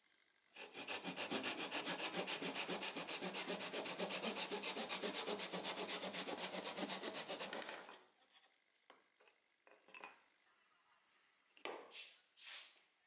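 Japanese dozuki back saw cutting a thin hardwood strip at an angle, a fast, even rasping of saw strokes that stops about eight seconds in. Afterwards a few light knocks and rubs of wooden strips being handled on the workbench.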